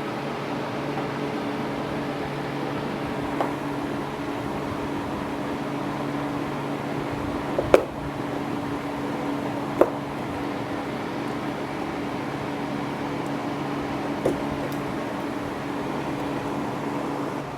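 A steady mechanical hum, like a fan or air conditioner, runs throughout. Four short sharp clicks cut through it, the loudest about eight seconds in.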